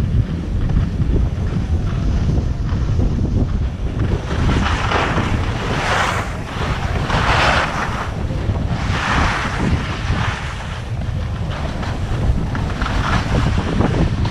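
Wind rumbling on the microphone of a skier going downhill, with the hiss of skis scraping over packed snow swelling several times, loudest in the middle, as the skis turn.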